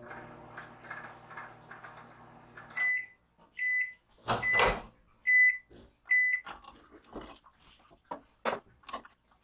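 Microwave oven running with a steady hum, which stops about three seconds in, followed by five short high beeps about a second apart. Over the third beep comes a loud clunk as the door is opened, then a few small knocks.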